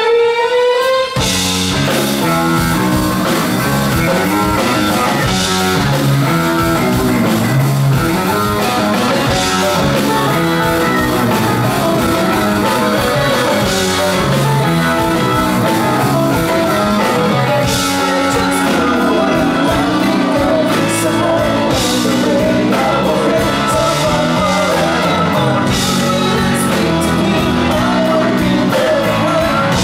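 Progressive rock band playing live: keyboards, electric guitar, bass and drums in a busy riff with a steady beat, and singing in the second half. About a second in, a gliding sustained lead line breaks off and the full band comes in.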